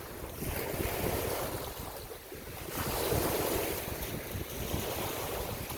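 Waves washing, with wind buffeting the microphone in low rumbles; the rush swells and eases, louder again near three seconds in.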